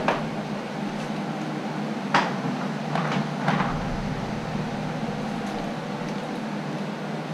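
Lumber being handled on sawhorses: four short, sharp knocks of wood against wood as a sample piece is set flush on a board, over a steady low hum.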